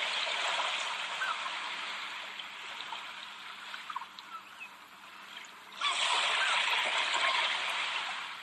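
Ocean waves washing onto a shore, easing off and then coming in again with a sudden swell about six seconds in.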